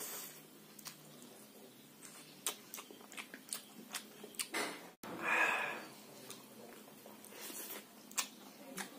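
Close-up eating sounds: a man chewing pigeon curry and rice, with a run of small wet mouth clicks and smacks and a short breathy sound about five seconds in.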